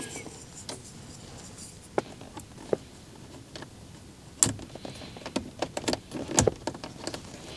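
Irregular light plastic clicks and knocks as control knobs are worked and pushed onto the spindles of a car's climate-control panel until they click into place.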